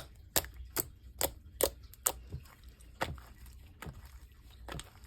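Slime being squeezed and worked by hand, giving sharp popping clicks as air pockets burst, about one every half second at first and sparser later.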